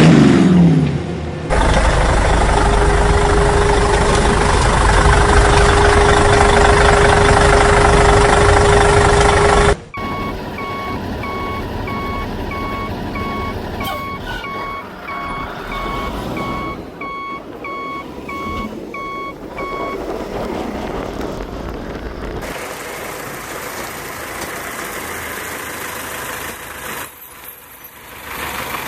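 A heavy truck engine runs loudly and steadily, then cuts off suddenly about ten seconds in. A reversing alarm follows, beeping evenly about one and a half times a second for roughly ten seconds over a quieter engine. Quieter engine noise runs on after the beeping stops.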